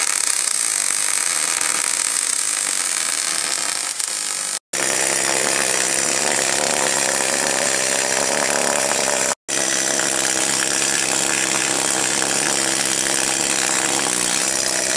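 Arc welding crackling steadily on a steel axle, then, after an abrupt cut about 5 seconds in, a handheld pneumatic tool chattering rapidly against the welded axle, broken by another sudden cut near the middle.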